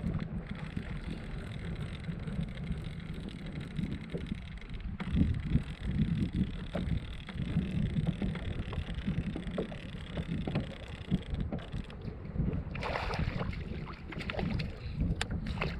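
Wind buffeting the microphone over water sloshing against a kayak hull, with a few short sharp knocks and clicks near the end.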